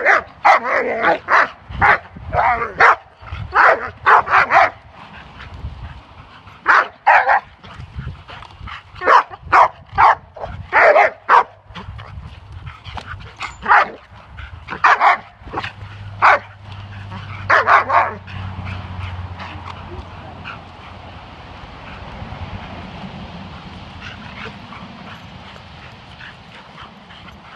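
Large black-and-tan shepherd-type dog barking in quick clusters of loud barks while straining on a leash at a man provoking it. The barking stops about two-thirds of the way in, leaving only faint steady background noise.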